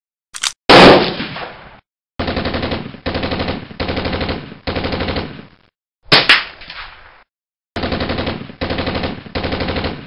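Automatic-gunfire sound effects: eight short bursts of rapid machine-gun fire in two groups of four, each burst under a second long. A single loud blast with a long fading tail comes about a second in and again about six seconds in. Each sound starts and stops abruptly against dead silence, as edited-in effects do.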